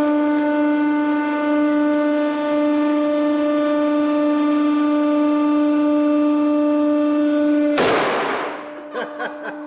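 Hydraulic press running with a steady pitched hum as the ram comes down. Near the end the ram crushes a small CO2 gas cartridge, which bursts with a sudden blast that dies away over about a second. The hum stops and a few small clicks follow.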